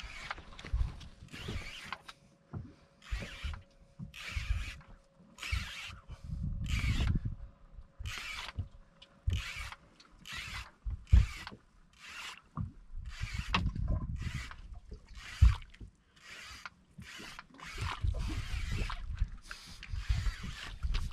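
Fishing reel being wound hard to bring a hooked fish up from deep water: a short whirr of the reel's gears with each turn of the handle, repeating about once every three-quarters of a second. Dull knocks of rod and reel handling run underneath, with two sharp knocks in the middle.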